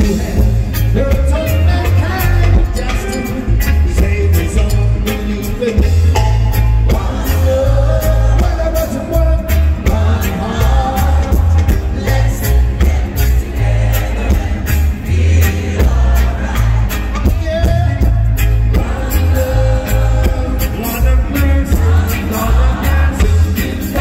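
Live reggae band playing with a male lead singer: heavy bass, drums keeping a steady beat, guitar and keyboards, and the sung melody on top, heard through a concert hall's sound system.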